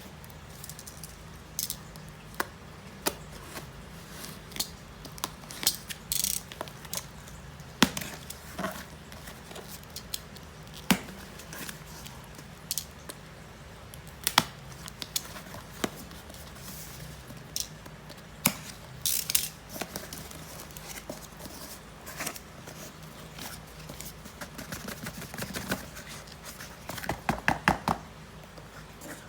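Packaging handled during an unboxing: scattered clicks, taps and crinkles of cardboard and plastic wrap, with a quick run of clicks near the end.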